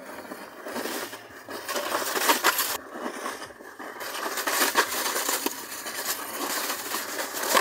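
A plastic sled scraping and rattling down a rough concrete slide track: a continuous gritty rush with many small knocks, louder from about two seconds in as it speeds up.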